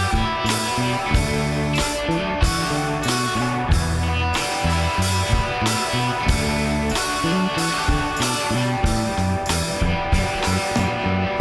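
Background rock music with guitar, bass and drums, at a steady beat.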